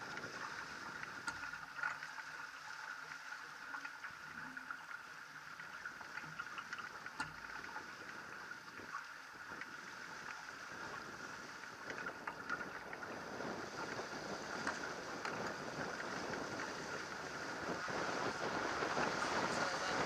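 Water rushing and splashing along the hull of a J-22 sailboat under sail, with wind buffeting the microphone; it grows louder over the last several seconds as the boat picks up speed.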